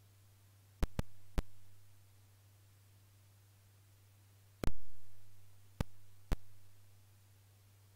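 Computer mouse clicks: six sharp single clicks, three near the start (the first two close together) and three later, the loudest a little before halfway, over a steady low electrical hum.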